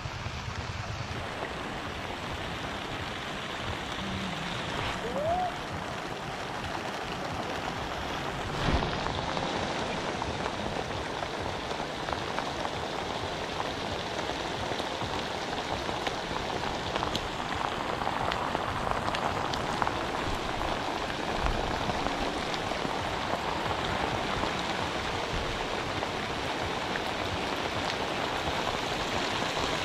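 Steady rain falling on a river's surface, an even hiss, with one sharp knock about nine seconds in.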